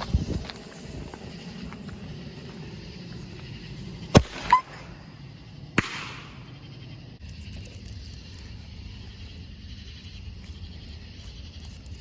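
Consumer fireworks going off: a sharp crack at the start, two loud bangs in quick succession about four seconds in, the second followed by a brief whistle, then a third crack near six seconds.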